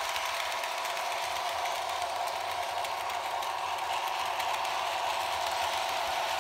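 Märklin HO model freight train running on Märklin M-Track: a steady whirring rattle of metal wheels rolling over the pressed-steel track, with the model locomotive's electric motor humming along.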